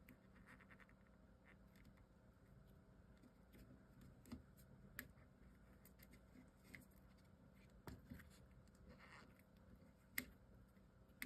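Near silence: room tone with a few faint taps and light scratches from handling a small chipboard box.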